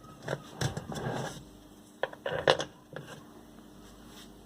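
Washing machine wash wheel (pulsator) being fitted onto the gearbox shaft and tightened: a handful of hard knocks and clicks with some scraping as the parts are handled.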